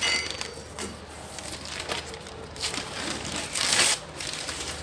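Newspaper masking being pulled off a car's front and crumpled, in several rustling bursts, the loudest just before the end.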